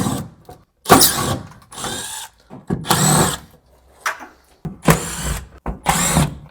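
Power drill/driver run in about six short bursts, backing out the screws that hold the sun visors.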